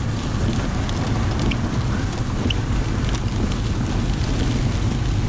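Steady low rumble of wind buffeting the storm-chase vehicle and the microphone, with a light hiss and a few faint ticks.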